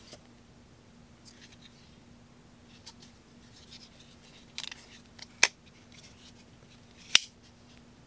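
Cold Steel SR1 Lite lockback (Tri-Ad lock) folding knife being worked by hand: faint handling rustles, then two sharp clicks about a second and a half apart as the blade snaps shut and locks open again.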